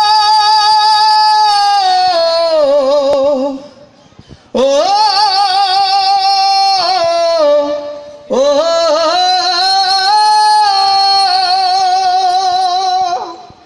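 A man singing unaccompanied into a microphone and PA loudspeaker, holding long, wavering high notes in three phrases with short breaks about four and eight seconds in. This is the slow opening of a Bengali folk song.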